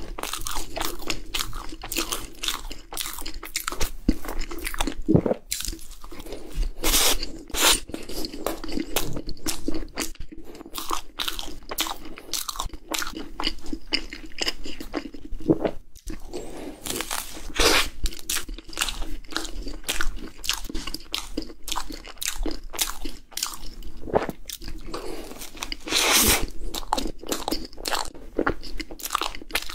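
Close-miked eating of cream puffs: crisp, crackly choux shells crunching under bites, with chewing in between and a few louder bites standing out.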